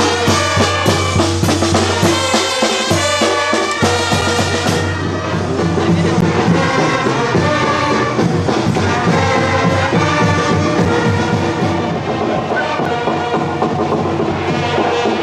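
Marching brass band playing: snare and bass drums with trumpets and trombones. About five seconds in the drum strokes drop back and the sound turns duller, with held brass notes carrying the tune.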